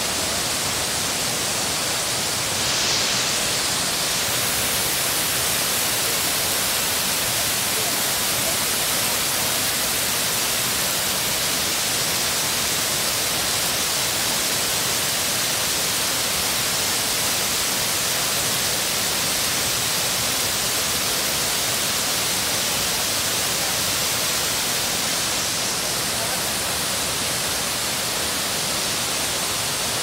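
Kapuzbaşı waterfall: a steady, loud rush of falling water, a hiss spread evenly from low to high pitch.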